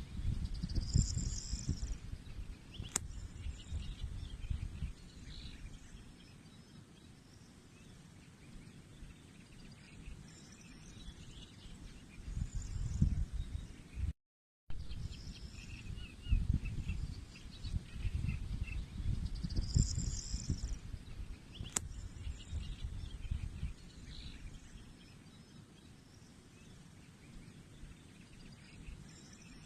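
Outdoor ambience: a few birds chirping in short scattered calls over a surging low rumble. There is a sharp click twice, and the sound cuts out for a moment about halfway.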